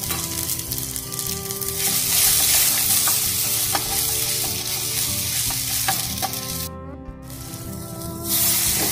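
Tomato-and-onion masala frying in a nonstick saucepan, a loud sizzle that grows about two seconds in as it steams, with a spatula scraping and tapping the pan a few times. The sizzle drops away briefly, then picks up again near the end as boiled macaroni is tipped into the pan.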